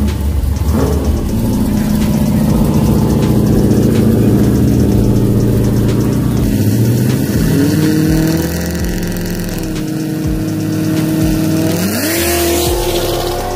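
Street car engine at a drag strip held at high, steady revs for a burnout, its pitch stepping up partway through and climbing sharply near the end.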